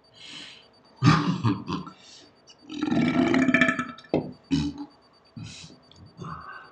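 Men burping, several burps in a row with short gaps; the longest and loudest comes about three seconds in.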